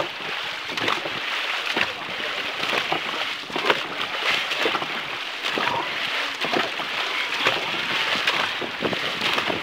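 Dragon boat paddles dipping and splashing through the water in a steady stroke rhythm, a little faster than one stroke a second.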